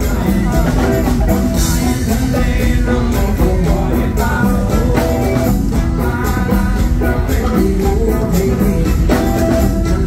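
A live Thai rock band playing, with electric guitar, a steady drum beat and a man singing.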